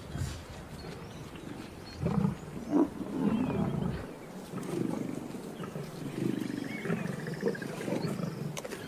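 Lions growling over a freshly brought-down buffalo calf, a run of low, rough growls that is loudest from about two to three seconds in.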